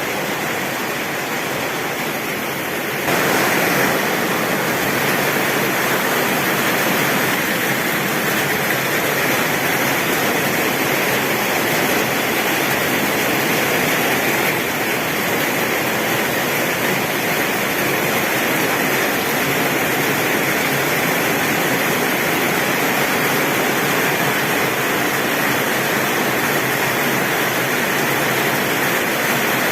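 Heavy rain drumming on a tin roof, a steady downpour that turns a step louder about three seconds in.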